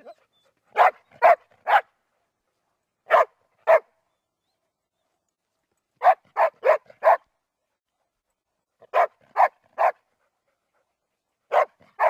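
Weimaraner barking in short runs of two to four barks, with pauses of a second or two between runs.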